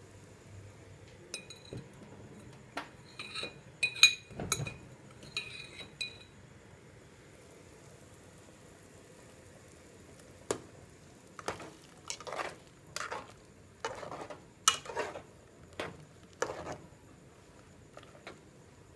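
Metal ladle clinking and scraping against the side of an aluminium pot while stirring soup. There are a few ringing taps in the first few seconds, then a run of knocks and scrapes from about ten seconds in.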